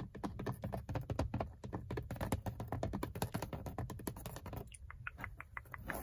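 Long fingernails tapping rapidly on the textured plastic airbag cover of a Ford Mustang's steering wheel, a quick flurry of clicks. Near the end the taps slow to a sparser, lighter run.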